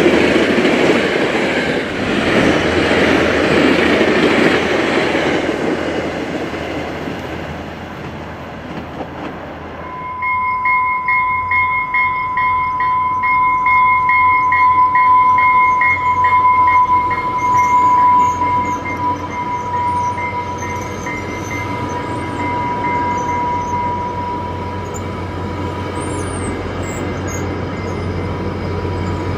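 Bilevel commuter train passing close by, its wheel-and-rail rumble fading away. About ten seconds in comes a steady high ringing tone with a faster pulsing tone over it, which slowly fades, as a cab-car-led train approaches. Faint bird chirps come near the end, and the locomotive's low engine hum rises at the very end.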